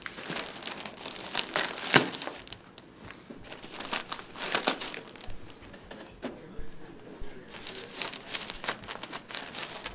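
Masking tape being peeled and torn off the brown paper wrap of a rolled projection screen, with the paper crinkling, in several irregular bursts and a sharp snap about two seconds in.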